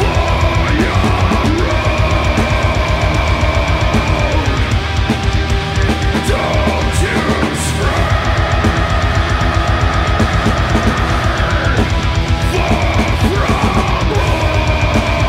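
Doom metal band playing live: heavily distorted guitars with long held high lead notes over a fast, steady kick-drum pattern and cymbals. The lowest kick-drum pulse drops out for a few seconds around the middle.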